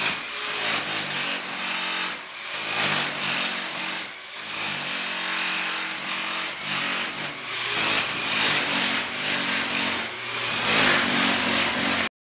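Corded electric demolition hammer with a chisel bit hammering up floor tile, running in stretches of a few seconds with about four brief pauses, then cutting off suddenly near the end.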